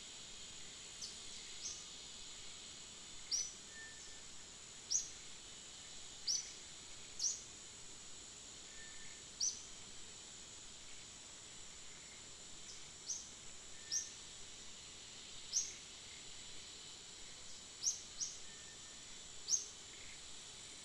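Rural outdoor ambience: a steady high-pitched insect drone, with short, high, falling chirps repeating about every second or so.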